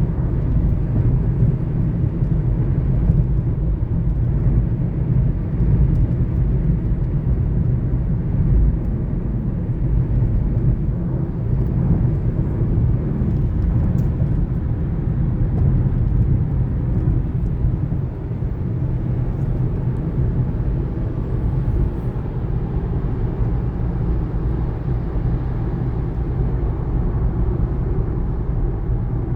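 Steady low road and tyre rumble of a 2019 Kia Niro driving, heard from inside the cabin. No high-pitched brake squeal stands out.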